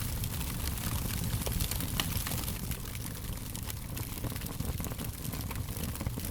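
Fire crackling: many small sharp pops and snaps over a steady low rumble.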